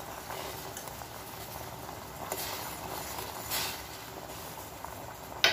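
Sugar syrup with chopped cherries boiling hard in a stainless steel saucepan: a steady bubbling with small pops. A single sharp click comes near the end.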